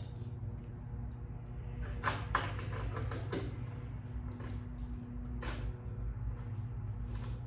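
Small metal clicks and scrapes from docking hardware and tools being worked onto a motorcycle bolt, a cluster about two to three seconds in and another near the end, over a steady low hum.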